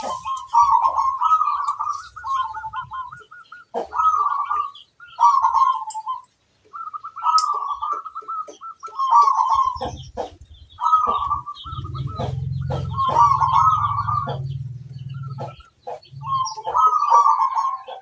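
Zebra dove (perkutut) singing its cooing song: rolling, stuttering coo phrases repeated every one to two seconds. A low hum runs underneath from about ten seconds in to fifteen.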